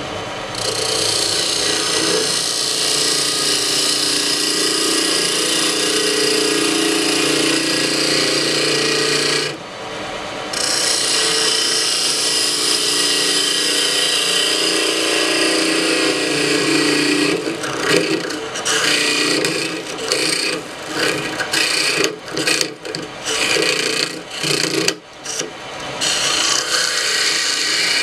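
Wood lathe spinning an Ambrosia maple ring blank while a hand tool cuts inside its bore, a steady scraping hiss of wood being removed. The cutting stops for about a second near the middle, comes in short strokes over the later part, then runs steady again. The bore is being widened to fit a stainless steel ring core.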